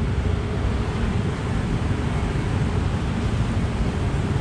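Steady noise of road traffic from a busy city street, cars and motorbikes running by without any single passing vehicle standing out.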